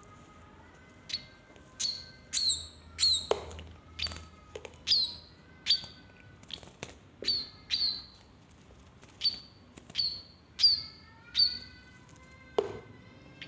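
A munia calling repeatedly: short, sharp, high chirps about once a second, several of them sweeping down in pitch.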